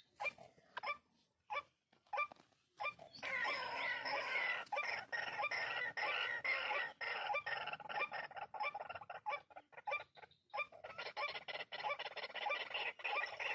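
White-breasted waterhens calling, a few short calls at first, then a dense run of rapidly repeated harsh calls that pauses briefly and starts again.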